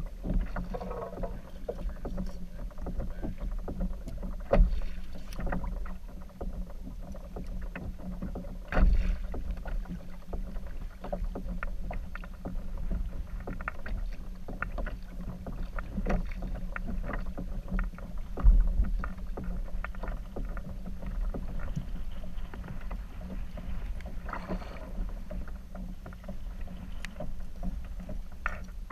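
Water lapping and slapping against a plastic kayak hull, with wind buffeting the microphone. Three louder low thumps stand out, a few seconds apart.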